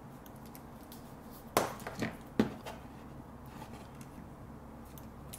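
Wire stripper working on VVF flat cable: a few short, sharp clicks and snaps around the middle as its jaws close on the cable and pull the outer sheath off.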